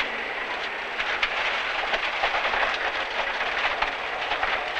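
Cabin noise of a rally car at speed on a gravel stage: a steady rush of engine and road noise, with loose stones rattling and ticking against the underside.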